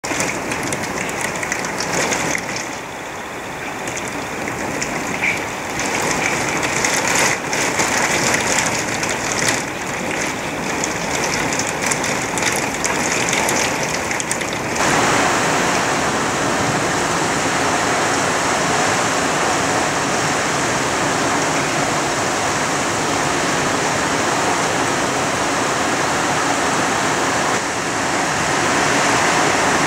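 Heavy rain downpour. In the first half it is heard from behind a window, with uneven patter and drops striking. About halfway it changes abruptly to a steady, louder, even rush of rain.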